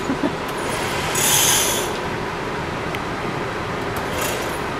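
Motorized target carrier running along its overhead track, carrying a paper target downrange, over a steady rush of background noise. A brief louder rush of noise comes about a second in.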